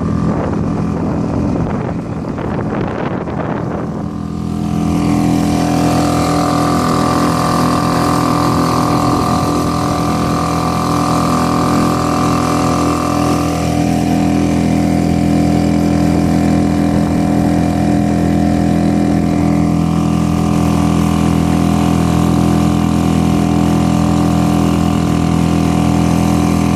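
Suzuki outboard motor on an inflatable boat running at a steady speed, an even drone that holds one pitch. For the first four seconds a rushing wind-and-water noise largely covers it.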